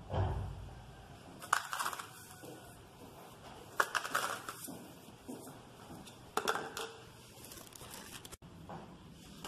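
Kitchen handling noise from plastic ingredient cups and packaging: a dull knock right at the start, then three short crinkling, crunching bursts about two and a half seconds apart.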